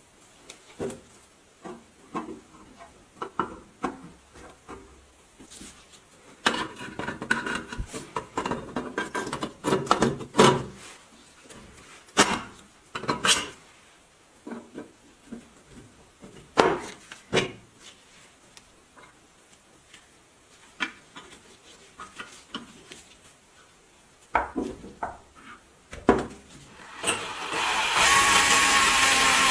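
Hard parts being handled: scattered knocks and clatter, with a stretch of scraping and rubbing, then a steady, sawing-like rasp starts about a second and a half before the end.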